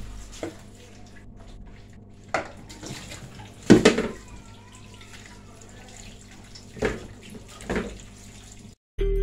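Kitchen tap running into a bowl in a stainless steel sink, with about five knocks and splashes as tomatoes are handled and dropped into a bowl of water, the loudest about four seconds in. The sound cuts off suddenly near the end.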